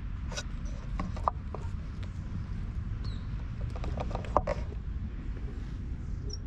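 Footsteps crunching on dry fallen leaves and pavement, a scatter of light clicks and crackles with two sharper ones, over a steady low wind rumble on the microphone. Near the end a brief high squeak as the metal tap of the park fountain is turned.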